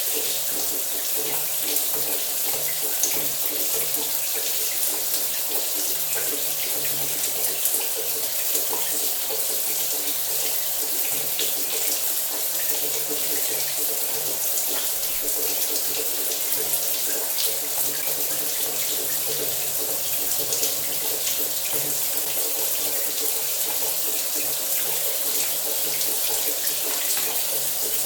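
Shower water running steadily, a continuous hiss with small scattered splashes and a faint low hum underneath.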